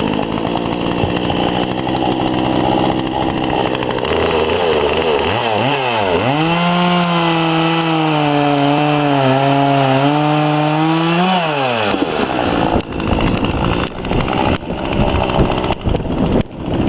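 Chainsaw cutting firewood: the engine revs up and down, then drops in pitch and labours for about five seconds under load in the cut. It revs back up and stops about twelve seconds in, followed by scattered knocks and clatter.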